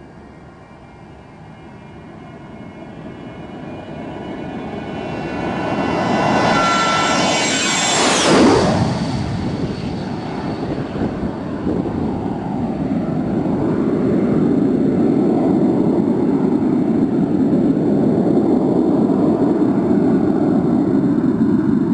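Dassault Falcon business jet's turbofan engines at take-off power: the roar and high whine grow louder as the jet approaches and passes low overhead about eight seconds in, the whine dropping sharply in pitch as it goes by, then a steady low roar as it climbs away.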